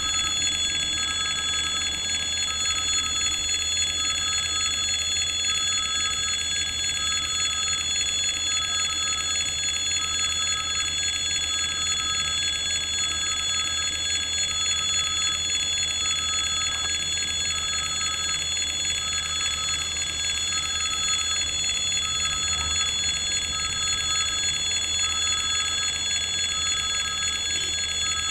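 Electric warning bell of a Russian railway level crossing ringing continuously, a steady ringing with a faint regular pulse about once a second, over a low steady hum.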